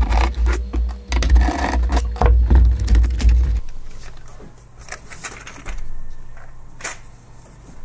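Clattering and scraping as the black slotted frame of an HP C7000 blade-enclosure midplane is worked loose and lifted off its circuit board. Heavy low thuds and rattling clicks come for the first three and a half seconds, then lighter scattered clicks and scrapes.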